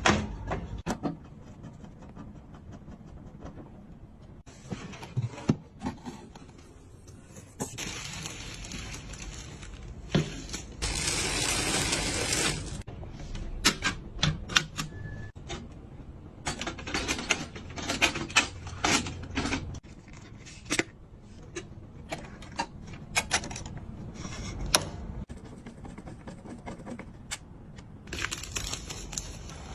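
Computer parts being handled and fitted together during a PC build: a run of sharp clicks and taps of plastic and metal with short scraping passages, and a louder rustling stretch about eleven seconds in.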